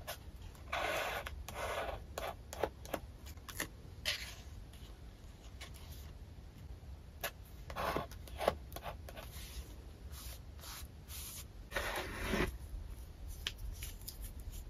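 Paper handling close to the microphone: stickers and paper pieces slid and pressed onto a journal page with metal tweezers, giving soft rustling swishes and light clicks, over a steady low hum.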